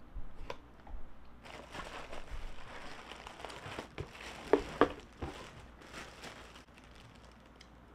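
Clear plastic packaging bags crinkling and rustling as they are handled, with two sharp crackles about four and a half seconds in, then only faint rustles near the end.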